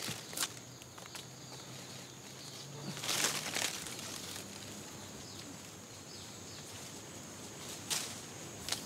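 Short bursts of rustling and crackling leaves and twigs, loudest about three seconds in and again near the end, over a faint steady outdoor background with a thin high steady tone.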